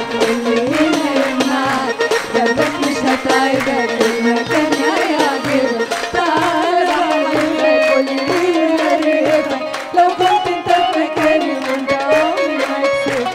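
Two women singing an upbeat Arabic song as a duet into handheld microphones, over a steady percussion beat.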